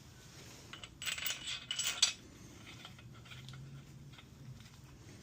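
Small metal engine parts clinking and jingling against each other as they are picked up and handled, for about a second starting a second in, followed by a few faint taps.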